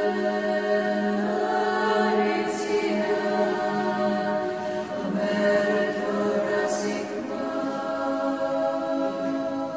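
A church choir of unaccompanied voices chanting an Orthodox liturgical hymn in long, steady held notes.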